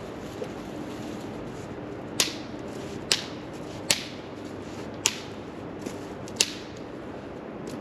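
Sharp wooden cracks and pops, five loud ones about a second apart and a few fainter ones, over a steady rushing background.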